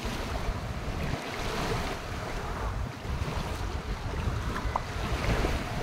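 Small waves washing onto a sandy shore, with wind buffeting the phone's microphone in a heavy low rumble.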